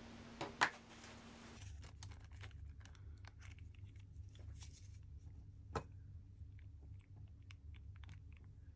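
Two sharp knocks about half a second in, then a thin plastic zip bag crinkling and rustling as it is handled, with small scattered ticks and one sharper click near six seconds in.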